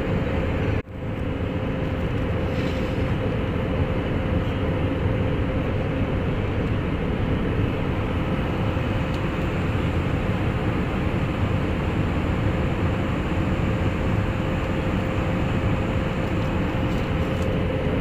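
Steady cabin noise of a jet airliner, its underwing turbofan engine running with a constant hum on approach to landing. The sound drops out sharply for a moment about a second in, then comes back.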